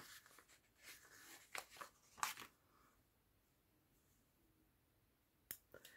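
Faint crinkle and rustle of a paper washi-style sticker being peeled off its backing sheet, a few soft short sounds in the first two and a half seconds, then near silence with one small tick near the end.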